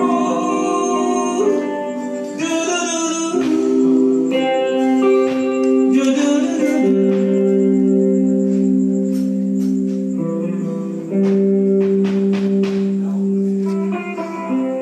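Dangdut band music playing through a PA sound system during a sound check: long held melody notes over guitar, with a run of sharp drum hits in the second half.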